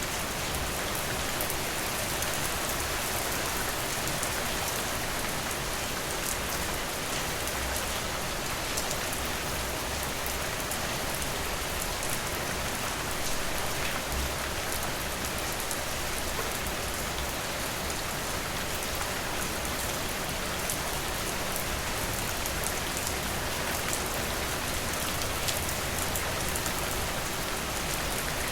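Steady rain falling, a dense even hiss with scattered individual drops ticking through it.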